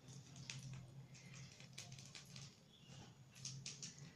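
Faint clicks and scrapes of a metal spoon spreading chicken filling on a pita over a plate, a couple of dozen soft ticks, over a steady low hum.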